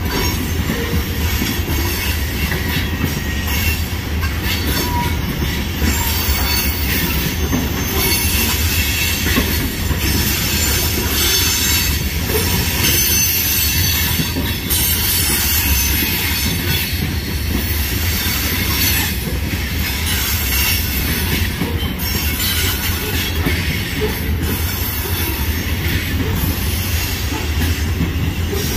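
Covered hopper cars of a freight grain train rolling past: a steady, continuous rumble of steel wheels on rail, with wheel squeal.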